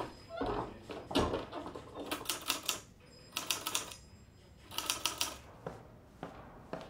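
Manual typewriter being typed on in three short bursts of rapid key strikes, after a dull thump about a second in.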